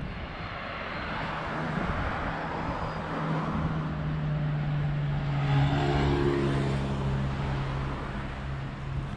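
Motor vehicle going by on a city street: a steady engine hum over tyre and traffic noise, loudest about six seconds in.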